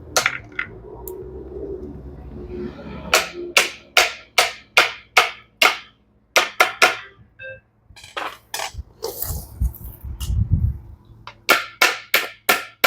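Series of sharp clicks and knocks, about two or three a second, in two runs with a short low rumble between them: the stainless steel nut and the new plastic drum lifter of an LG front-loading washer being handled and worked into place.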